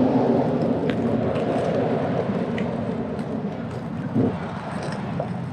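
Roller skate wheels rolling over pavement: a steady rumble that slowly fades, with a few light clicks and a single knock about four seconds in.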